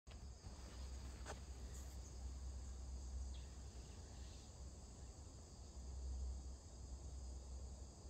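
Faint, steady, high-pitched insect chorus over a low rumble, with a single sharp click about a second in.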